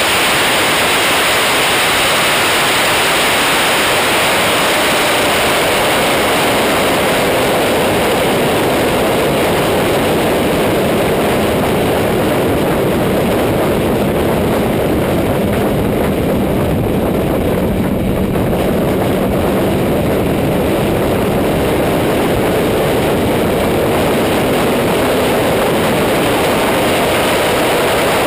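Loud, steady wind rush over a camera mounted on a Kawasaki ZX-10R sportbike at high speed. The bike's inline-four engine runs underneath the wind, with a faint steady engine tone in the middle stretch.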